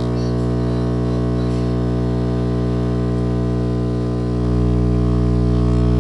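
Two Sundown E8 subwoofers wired straight to a 120-volt wall socket, driven by the 60 Hz mains as a loud, steady, droning hum. It grows louder about four and a half seconds in.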